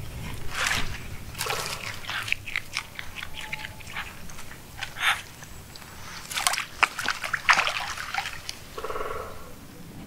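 Eurasian otter feeding in shallow water: splashing and sloshing with a run of sharp crunching bites, loudest between about six and eight seconds in.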